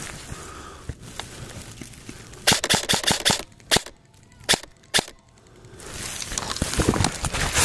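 Airsoft gun firing: a quick burst of sharp shots about two and a half seconds in, then three single shots spaced about half a second apart.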